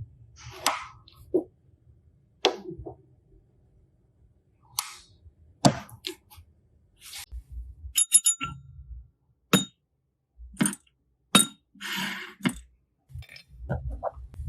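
A series of separate clicks and light clinks of small hard objects, spaced about a second apart, several with a brief high ring, and a short crackly patch near the end.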